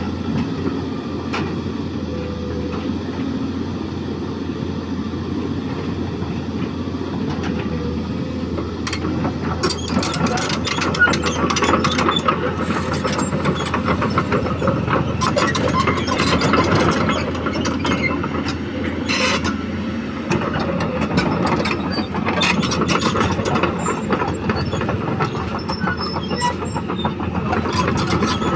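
Cat 320D hydraulic excavator's diesel engine running steadily; from about nine seconds in, a dense run of sharp clicks and knocks joins it and the sound gets a little louder.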